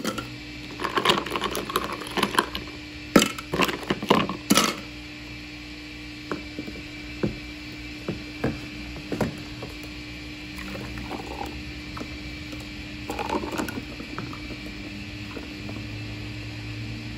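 Ice cubes dropped into a clear plastic blender cup, with a run of loud clattering clinks in the first few seconds, then scattered single ticks as the cubes settle. Near the end, a fruit drink is poured over the ice.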